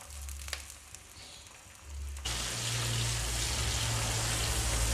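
Raw peanuts going into hot oil in a wok: about two seconds in, a sudden, steady sizzle of deep frying starts and keeps on.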